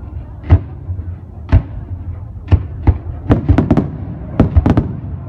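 Fireworks display: sharp bangs of bursting shells, about one a second at first, then coming faster and crowding together from about three seconds in.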